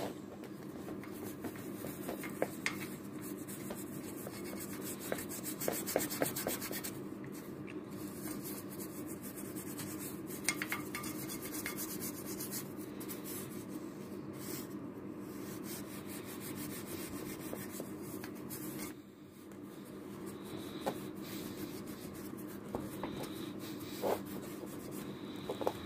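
Hand scrubbing the metal wheel rim of a 1978 Piaggio Ciao moped with a pad, a steady rubbing scratch with occasional small knocks, easing off briefly about two-thirds of the way through.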